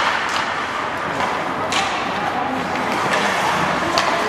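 Ice hockey play: a steady wash of rink noise with three sharp clacks of sticks and puck, the loudest about one and a half seconds in.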